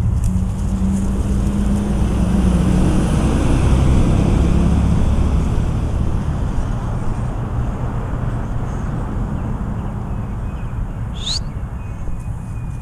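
A tractor-trailer truck's engine running on the road close by: a steady low engine note with road noise, loudest about four seconds in, then slowly fading.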